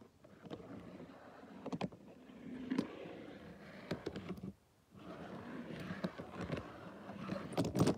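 A small die-cast toy car scraping and rolling on the plastic flatbed of a toy tow truck as it is pushed into place, with sharp clicks where the toys knock together. It pauses briefly about four and a half seconds in, and the clicks come thicker near the end.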